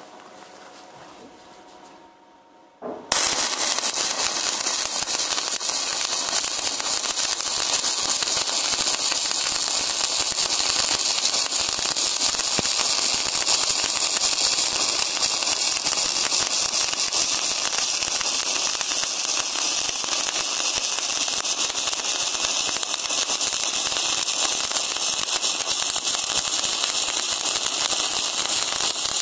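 Stick-welding arc of a 2.5 mm basic (7018-type) electrode at 125 amps, struck about three seconds in and then burning without a break with a dense, loud crackle and hiss.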